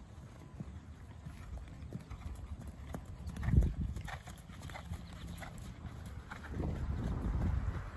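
Hoofbeats of a horse trotting on soft sand arena footing, a steady run of dull knocks that grows louder as the horse comes close, with one louder thud about three and a half seconds in.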